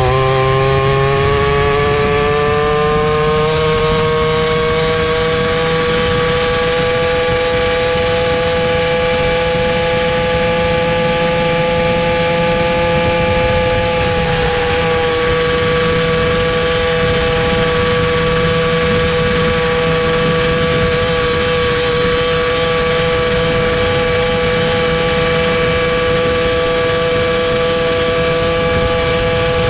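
Tuned 60cc reed-valve two-stroke engine of a Jawa Babetta 207 moped with an aftermarket expansion-chamber exhaust, running at high revs under way. Its pitch climbs over the first few seconds, then holds steady, dipping briefly about halfway.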